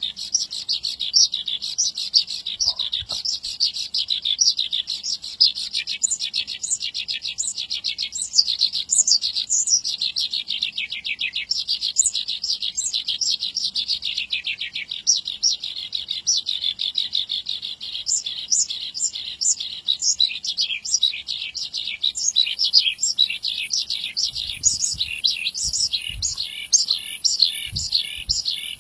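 Horsfield's bush lark (branjangan) in full song: an unbroken, fast chattering run of high notes. A few faint low thumps near the end.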